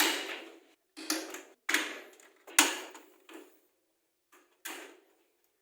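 Sharp clicks and knocks of a CPU cooler fan being fitted onto a motherboard. They come in a quick run of about six over the first three seconds or so, then two more near the end.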